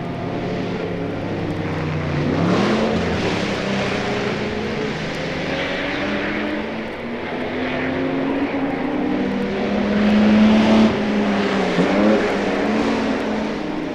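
Several 1964 Le Mans racing cars passing and changing down gears on the approach to a corner, their engine notes overlapping. Twice the pitch swoops up sharply as an engine is blipped on a downshift.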